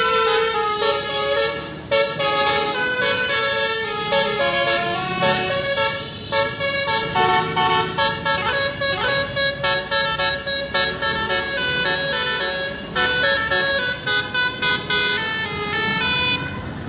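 Telolet basuri multi-tone horn playing a melody: stepped notes, with runs of short quick toots in the second half. It cuts off just before the end.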